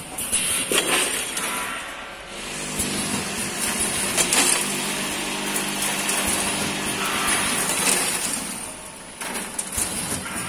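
ZV 420C popcorn packing machine running, with the bucket elevator and rotary cup filler clattering and clinking. A steady motor hum comes in about two seconds in and fades out about nine seconds in.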